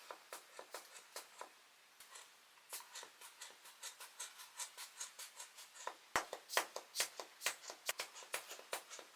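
A hand-squeezed air blower being pumped over a laptop keyboard to blow dust out from under the keys: a rapid series of short, sharp puffs and clicks, about two to three a second, with a brief pause near the start.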